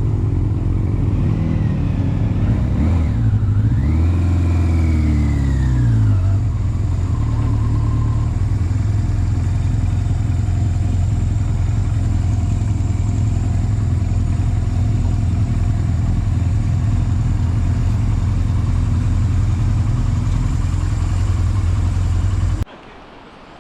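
Motorcycle on the move, heard from the bike under a heavy low rumble: the engine note dips and then climbs and falls again in the first few seconds, then settles to steady cruising. The sound drops off abruptly near the end.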